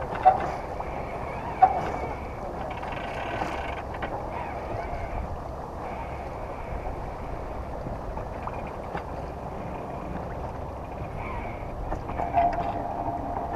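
Sailing yacht under way: a steady wash of water and wind, with two sharp knocks in the first two seconds.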